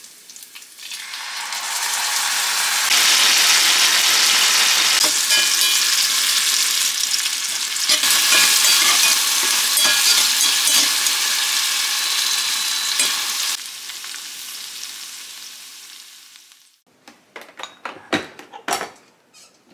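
Pork jowl slices sizzling hard in a cast-iron skillet as bottled seasoning sauce hits the hot pan, the sizzle building over the first couple of seconds, turned with metal tongs, then dying away. Near the end, a few sharp clicks and knocks as the lid of an electric rice cooker is handled.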